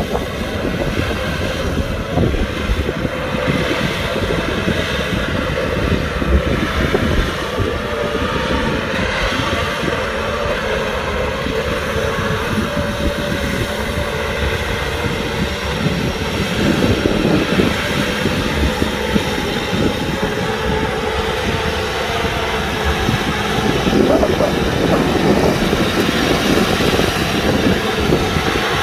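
Kubota tractor's diesel engine running steadily under load while plowing, a little louder in the second half.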